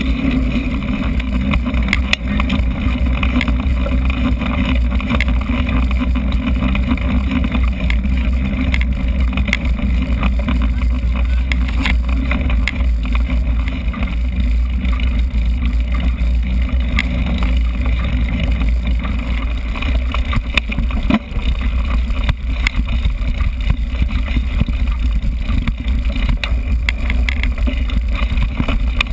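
Wind buffeting a GoPro action camera's microphone on a moving mountain bike, a steady low rumble, with tyre noise and frequent small rattles and clicks from the bike over the track.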